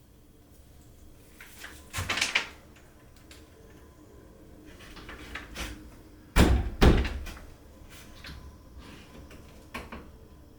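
Knocks and thumps on wood as the door frame and its clips are worked into place: a short cluster about two seconds in, then two loud thumps half a second apart past the middle.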